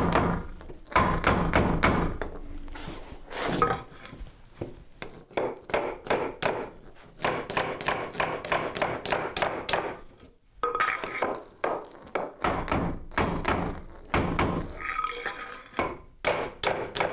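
Claw hammer striking a wooden 2x4 tapping block to drive an OSB-topped, plastic-based subfloor panel along the concrete, locking its tongue and groove into the next panels. Sharp wooden knocks in quick runs of about four blows a second, with short pauses between runs.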